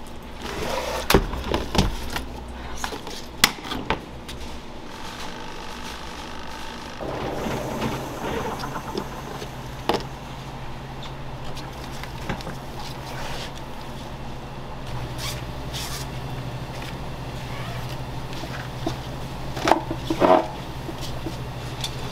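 Knocks and clatter of kitchen work, several sharp strikes in the first few seconds and a couple more near the end, over a steady low hum that sets in about seven seconds in.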